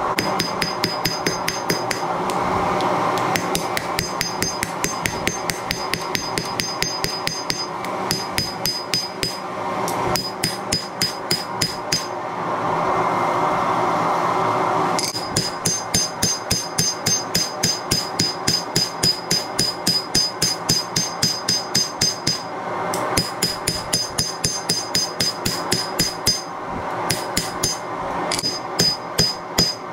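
Hammer striking hot leaf-spring steel on an anvil to forge a knife blade. The blows come in quick runs of about three a second, each with a bright anvil ring. The runs are broken by a few short pauses and a longer one a little before halfway.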